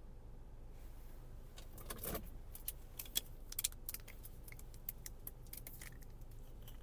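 A scatter of light clicks and crinkles from a plastic water bottle being handled, its cap twisted, while she drinks in the pause, starting about a second and a half in.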